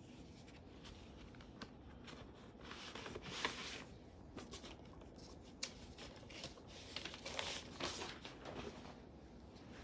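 Faint rustling and handling noise with scattered light clicks, louder in short stretches about three and a half and seven and a half seconds in.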